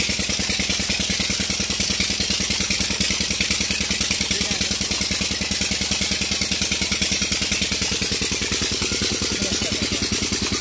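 Old Petter diesel engine running with a steady, even firing beat, its speed dropping slightly near the end.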